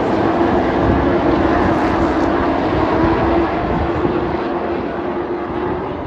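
Race trucks running on the oval: a loud, steady drone of several engines at speed, easing off a little near the end.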